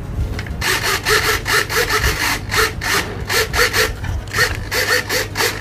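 Small RC servos whirring in short back-and-forth strokes, about three a second, as the transmitter sticks sweep the control surfaces during a control check.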